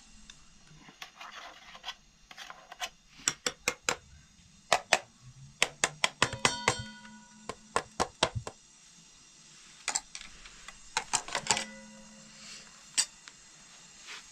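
Metal and glass kitchenware clinking and knocking in irregular bursts of quick strikes, some of them ringing briefly.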